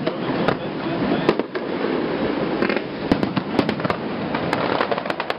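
Many fireworks going off at once at a distance: a steady din of bursts with sharp pops scattered irregularly through it.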